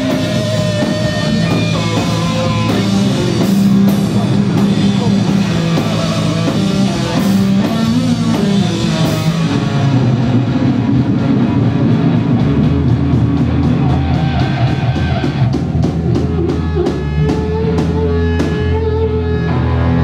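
A live rock band playing loudly, with distorted electric guitars over a drum kit and crashing cymbals. About ten seconds in the cymbals thin out and a heavy low drone takes over, and a run of quick, even drum hits comes near the end.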